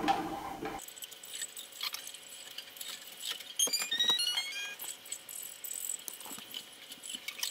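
New nylon guitar strings being pulled and rubbed along by hand through a cloth to stretch them so they settle and hold tuning: rubbing, light clicks and rattles, and short squeaky string tones in the middle.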